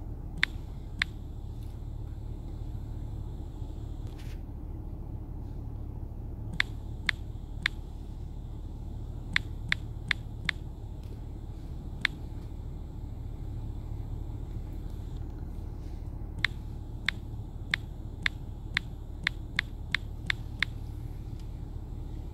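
Key taps on a phone's on-screen keyboard while a password is typed: sharp single clicks, some spaced out and some in quick runs of several a second. Under them is a steady low background rumble.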